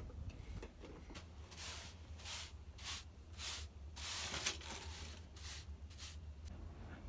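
Short straw hand broom sweeping a concrete floor in a string of quick brushing strokes, about half a second apart, with a low steady hum underneath.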